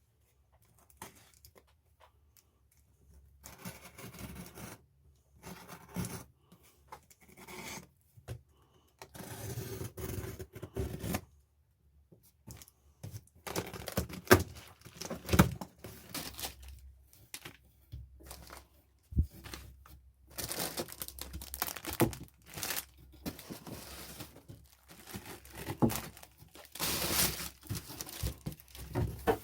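Packaging being torn open and crinkled by hand, in irregular rustling stretches with scattered sharp knocks and clicks, starting a few seconds in.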